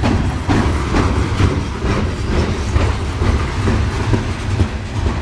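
Coal hopper cars of a Norfolk Southern freight train rolling past close by: a loud, steady low rumble with repeated clacks of the wheels over the rail joints.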